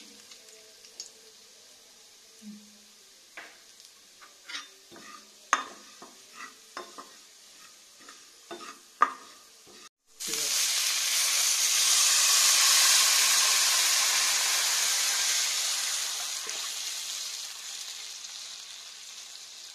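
Steel spatula scraping and clicking against a pan while garlic and chilli flakes fry quietly in oil. After a break about halfway, a loud sizzle starts suddenly as liquid meets the hot oil, peaks a few seconds later, then slowly dies down.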